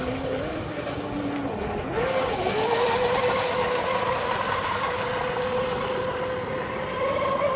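Traxxas M41 RC boat's brushless electric motor whining as the boat runs on the water; the pitch dips briefly, climbs about two seconds in as the throttle opens, then holds steady.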